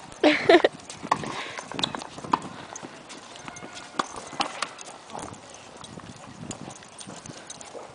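A Siberian husky puppy and a golden retriever play-fighting: scattered sharp clicks and scuffs of claws and paws on the hard court surface, with one brief loud cry about half a second in.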